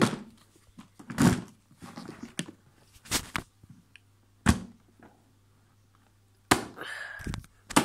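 A handful of separate dull thumps and knocks, two of them close together about three seconds in, followed near the end by a short rustling scrape. No vacuum motor is running.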